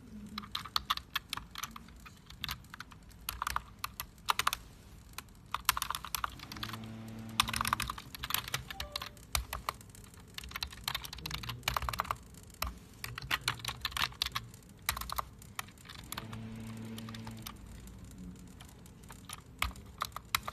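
Typing on a USB computer keyboard: runs of quick key clicks broken by short pauses.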